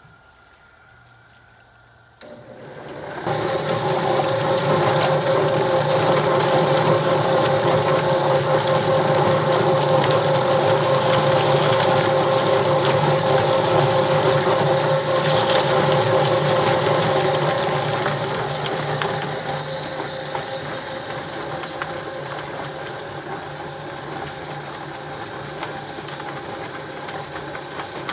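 YardBird chicken plucker starting up about two seconds in, its electric motor spinning the drum so the scalded chickens tumble against the rubber plucking fingers, with a garden hose spraying water into the drum. Steady running sound that gets quieter for the last several seconds.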